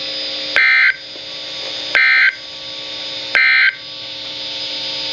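NOAA Weather Radio EAS end-of-message signal: three short bursts of two-pitch digital data screech, about a second and a half apart, marking the end of the alert. A steady radio hiss fills the gaps.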